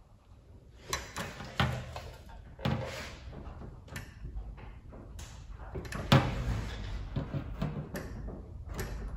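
Vise-grip locking pliers, modified as a rivet squeezer, being fitted and clamped over aluminium aircraft rivets: an irregular run of sharp metal clicks and clanks with scraping and handling noise between them, the loudest clank about six seconds in.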